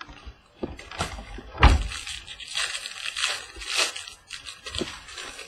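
Trading cards and their packaging being handled: rustling and crinkling, with one heavier thump about a second and a half in.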